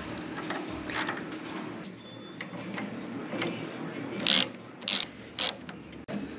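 Small metal-on-metal clicks, then three short rasps about half a second apart, as the intermediate steering shaft's coupler is worked onto the steering gearbox input shaft and lined up with a tool pushed through its bolt hole.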